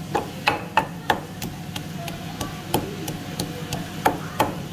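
Wooden pestle pounding garlic cloves in a wooden mortar, a steady run of sharp knocks about three a second.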